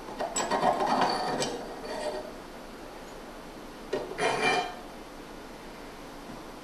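Metal clinking and scraping as a katana's tsuba is worked loose and slid along the sword's tang, in two bursts: one about two seconds long at the start and a shorter one about four seconds in.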